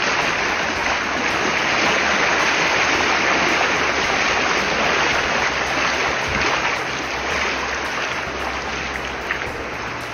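Steady rush of water in a flooded street, easing a little toward the end.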